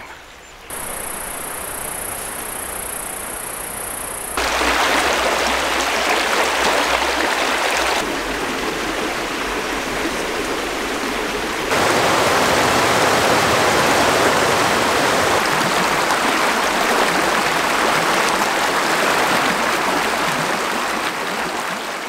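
Water of a small mountain creek running over rocks, in edited segments that step up in loudness about four seconds in and again near twelve seconds. A steady high hiss lies over the first few seconds.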